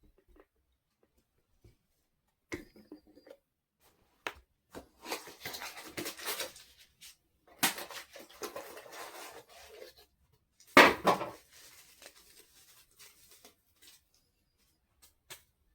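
Parts and tools being handled during a repair: scattered clicks and plastic clatter, two stretches of scraping and rustling, and one loud knock about eleven seconds in.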